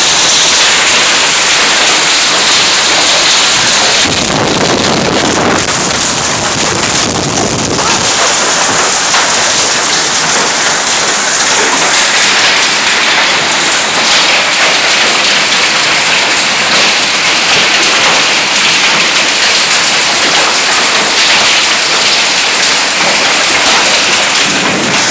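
Hail and heavy rain coming down hard as a loud, steady hiss. A low rumble of thunder swells about four seconds in and fades by about eight seconds.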